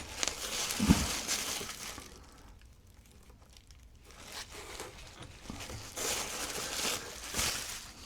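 Packing wrapping crinkling and rustling as it is handled, in two spells: over the first two seconds and again from about six to seven and a half seconds in. A short knock about a second in is the loudest sound.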